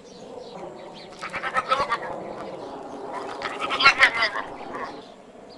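An animal calling in two wavering, quavering bursts, one about a second in and a louder one about four seconds in.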